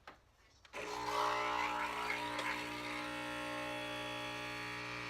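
A faint click near the start, then background music comes in about a second in: a steady held chord of many sustained tones.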